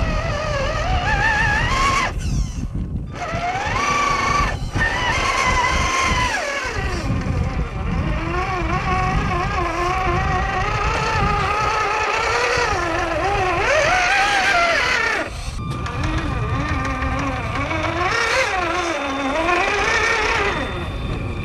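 Electric motors and gear drives of scale RC off-road trucks whining, rising and falling in pitch with the throttle and cutting out briefly a few times, over the low churn of tyres in wet mud.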